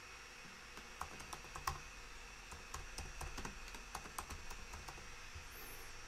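Typing on a computer keyboard: a faint run of irregular key clicks starting about a second in and stopping about a second before the end.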